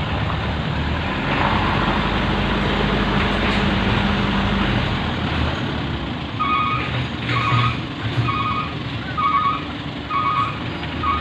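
A vehicle running, with a back-up alarm starting about six seconds in and beeping at an even pace, about one beep a second.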